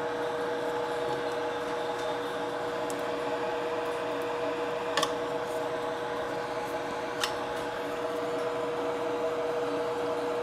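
Small electric fan running steadily: an even hum with a steady pitched drone. Two light clicks come about five and seven seconds in.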